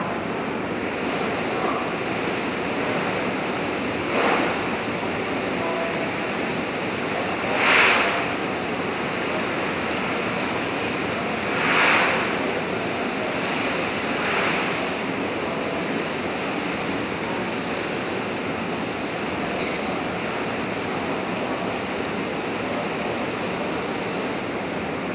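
Extinguishing spray hissing in short bursts onto the rubble of a burned office workstation, about four times at roughly 4, 8, 12 and 14 seconds in, the loudest near 8 seconds, over a steady rushing noise.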